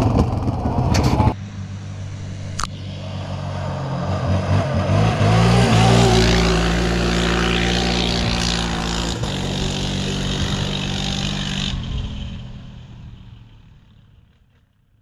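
A quad's engine running hard at speed, heard from the rider's helmet, cuts after about a second to another off-road vehicle's engine. That engine grows louder as the vehicle speeds past along a dirt road, then fades steadily into the distance until it is gone.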